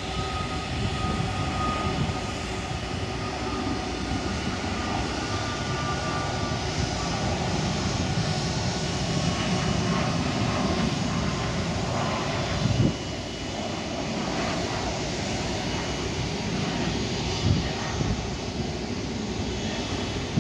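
Boeing 737 MAX 8's CFM LEAP-1B turbofans at takeoff power: a steady rushing jet noise with deep rumble as the aircraft rolls, lifts off and climbs away. Two brief bumps, one about halfway and one near the end.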